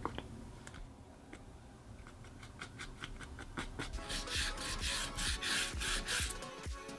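Paintbrush bristles scratching back and forth over ridged cardboard, a run of quick rasping strokes in the second half.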